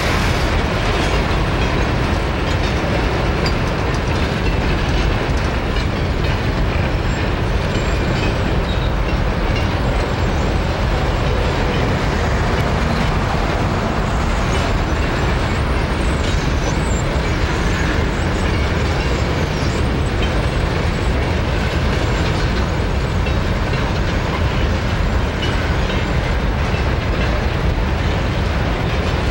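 Empty grain hopper cars of a long freight train rolling past at a steady speed: a continuous rumble and clatter of steel wheels on the rails.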